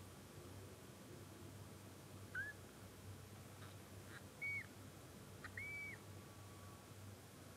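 A day-old newborn kitten mewing three times, each a short, high-pitched cry a fraction of a second long. The first rises in pitch; the last two hold level and drop off at the end. There are a few faint clicks between the cries.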